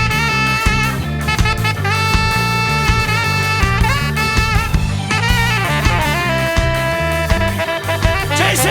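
Ska-jazz band playing: saxophone and horns hold long notes over electric bass, organ and a drum kit. Near the end the held notes stop and sliding, bending notes take over.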